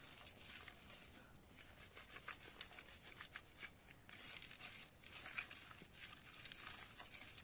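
Faint, scattered rustles and light scrapes of hands working in a metal bowl and shifting on a plastic groundsheet, a few small ticks at a time with no steady sound.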